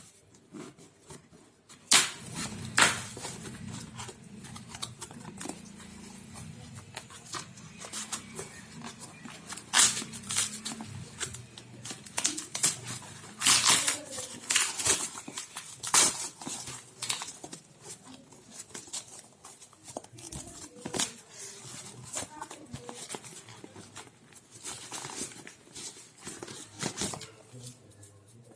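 Smartphone box and its packaging being handled and opened: irregular rustles, scrapes and sharp taps, some of them loud.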